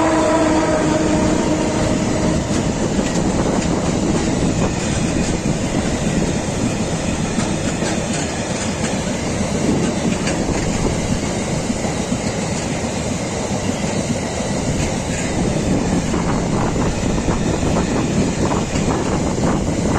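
Freight train passing close: an electric locomotive goes by with a few steady tones that fade within the first couple of seconds, then a long string of empty double-deck car-carrier wagons rolls past, wheels rumbling and clacking over the rails. The clacks come more often near the end.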